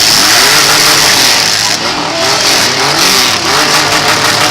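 Demolition derby car engines revving up and down repeatedly over a harsh, loud din.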